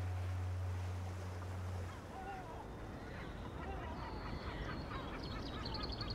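A low, steady musical drone ends about two seconds in. Then birds call and chirp over faint outdoor background noise, with a quick high trill near the end.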